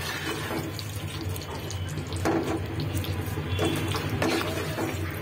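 Chicken pieces sizzling and bubbling in a pan of spice paste as they are fried down and stirred with a spatula, with a couple of louder stirring strokes partway through.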